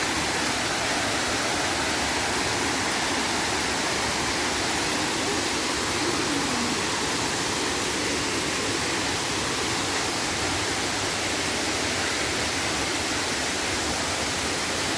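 Steady rush of falling water at a waterfall: an even, unbroken hiss that holds the same level throughout.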